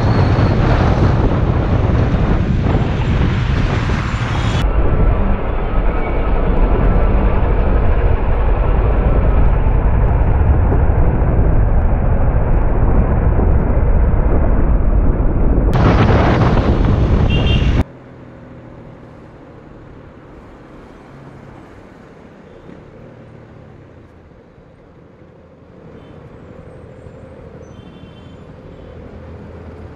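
Wind rushing over the microphone with engine noise while riding a KTM Duke 250 single-cylinder motorcycle in traffic. About 18 seconds in it drops abruptly to a much quieter sound of the bike's engine running low amid traffic.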